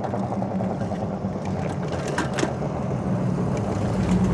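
E-bike riding along a paved street: a steady low motor hum mixed with tyre and road noise, with a few small clicks and rattles about halfway through.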